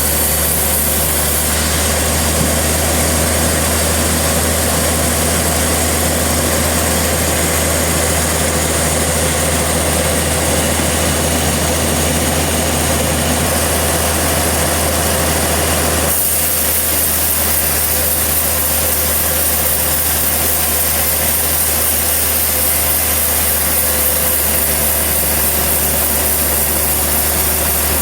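Sawmill engine running steadily with a deep hum; the sound changes abruptly about sixteen seconds in.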